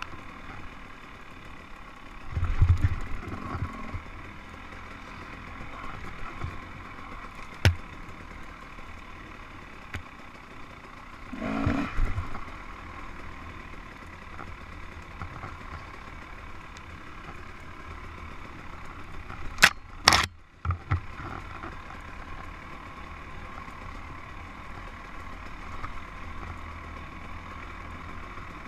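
Dirt bike engine running at low, steady revs along a woods single-track, with a few louder surges and sharp knocks as the bike goes over bumps. The two loudest knocks come close together about twenty seconds in.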